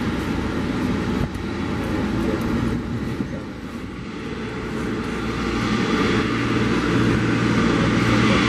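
Boeing 777-300ER's GE90 jet engines running at taxi power: a steady rumble with a low hum, growing louder over the second half as the airliner rolls closer.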